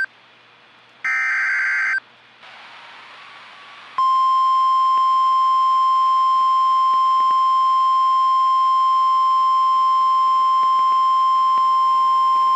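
NOAA Weather Radio EAS alert: about a second in, a one-second screech of SAME header digital data, the last of the header bursts that encode the alert, followed by a short stretch of faint radio hiss. From about four seconds in comes the steady single-pitch 1050 Hz Weather Radio warning alarm tone, which signals that a warning follows.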